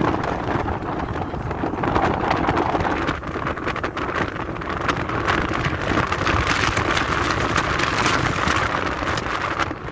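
Car driving, heard from inside: steady road and wind noise with frequent small clicks and crackles.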